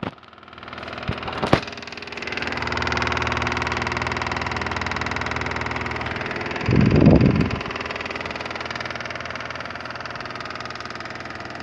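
Split AC indoor unit's blower running with a steady vibrating, rattling noise that builds up over the first couple of seconds, with a louder low rumble about seven seconds in. It is the kind of noise most often caused by a worn blower-shaft bush with a cut carbon ring, or by dry or worn fan-motor bearings.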